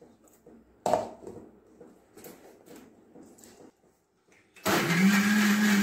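A knock as the steel jar and lid are handled about a second in, then near the end a Crompton mixer grinder switches on and runs with a loud, steady hum, grinding a milky banana-and-chocolate mixture into a paste.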